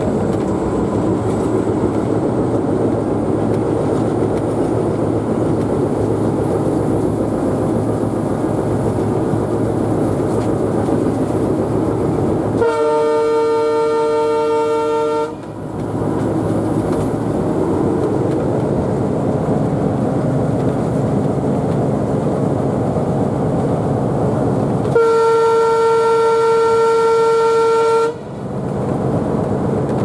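Alco WDM-3D diesel locomotive's engine running steadily, heard from inside the cab, while its horn sounds twice: a blast of about two and a half seconds about halfway through and a blast of about three seconds near the end. The horn blasts are the loudest sounds.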